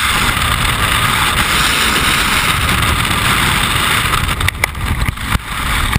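Loud, steady rush of freefall wind over a helmet-mounted camera's microphone. About four and a half seconds in it turns choppy, cutting in and out in uneven gusts.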